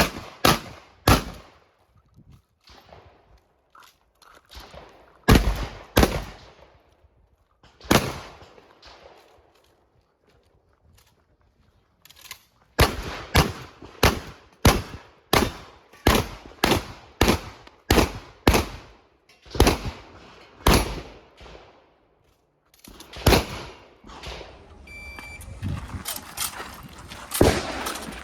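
Shotgun shots fired in strings. A few scattered shots come first, then a pause of a few seconds, then a steady run of about two shots a second, and faster strings near the end. A short high beep sounds once among the later shots.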